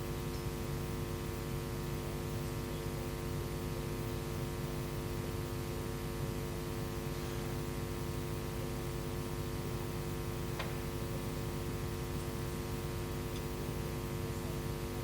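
Steady electrical mains hum, several fixed tones at once, with a single faint click about ten seconds in.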